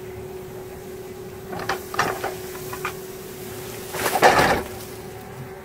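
Case 695 backhoe loader running steadily while its hydraulic mowing bucket cuts reeds and grass, with a few short noisy bursts as the bucket works through the vegetation, the loudest about four seconds in.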